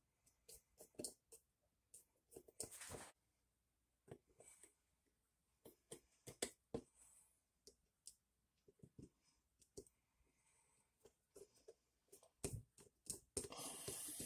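Faint, scattered clicks of a hand tool turning screws on an outboard engine block, with two short scratchy runs, one about three seconds in and one near the end.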